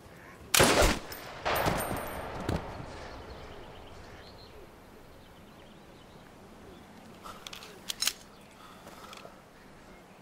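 Rifle shots: two loud shots in the first two seconds, each trailing off in a long echo, then a smaller crack. A few shorter, sharp cracks follow near the eight-second mark.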